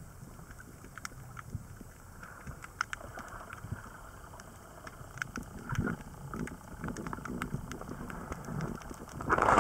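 Underwater ambience through a camera housing: a low rumble of moving water with scattered faint clicks and crackles. Near the end a louder rush of water noise sets in.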